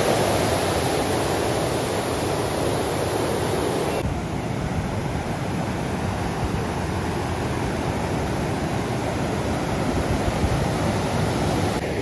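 Water pouring through the arched sluice openings of a weir and churning in the channel below: a steady, dense rush of falling water.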